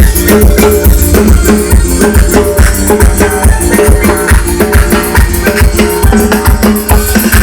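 Live band music: an instrumental stretch of a Latin dance tune with a steady drum-and-bass beat, rattling shaker-type percussion and held melody notes.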